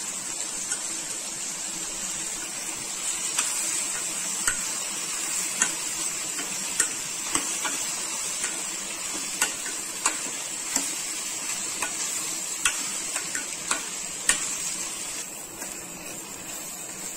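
Ridge gourd, shallots and tomato sautéing in oil in a stainless steel kadai, a steady sizzle, while a steel spoon stirring the mix clinks and scrapes against the pan every second or so. The sizzle softens a little near the end.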